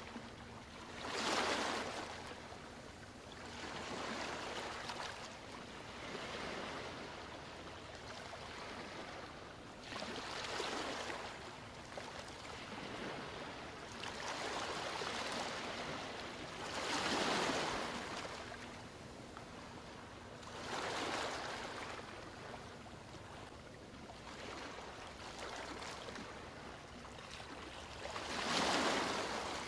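Ocean surf: waves breaking and washing ashore in repeated swells of hiss a few seconds apart. The three strongest come about a second in, in the middle and just before the end.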